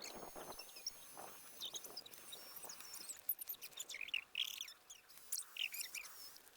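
Birds chirping, many short high calls overlapping, with faint rustling in the first second.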